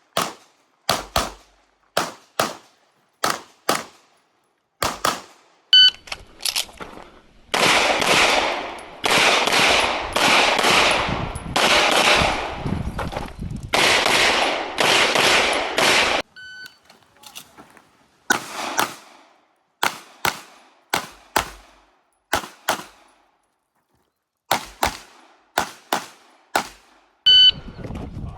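Pistol fired in quick strings of shots through a practical shooting stage, with steel targets ringing with a clang when hit. In the middle comes a long, loud, dense stretch of sound in which single shots no longer stand apart.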